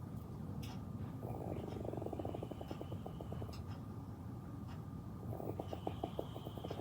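A man snoring in his sleep. There are two rattling snores, each a fast flutter that slows toward its end. The first comes about a second in, and the second starts near the end, about four seconds after the first.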